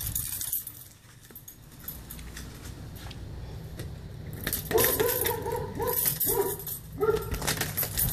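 Keys jangling and clicking in a front-door deadbolt. From about halfway through, dogs behind the door give several short whines, each well under a second long.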